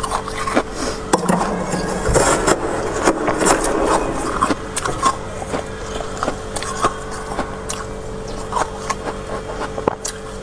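Soft freezer frost being scraped off the shelves of a frosted-up freezer compartment with a spatula and spoon: a string of irregular scrapes and clicks, busiest about two to four seconds in.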